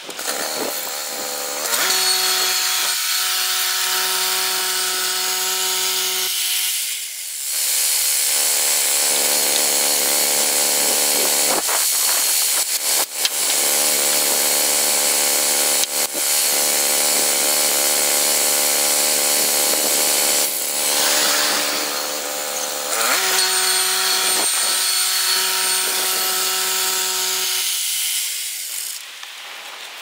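Woodland Mills HM122 portable bandsaw mill running: the gas engine comes up to speed with the blade spinning free, then its note drops under a steady hissing saw noise as the band blade cuts through a pine log for about fifteen seconds. Near the end it returns to free running and winds down.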